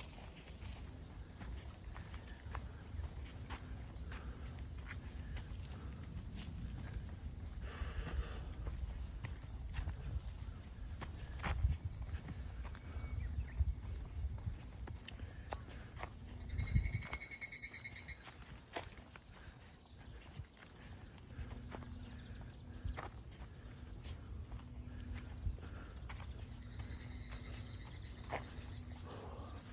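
Insects droning in one steady, high-pitched band, with the low rumble and scattered crunches of someone walking along a forest trail. A short pitched call cuts in briefly a bit past the middle.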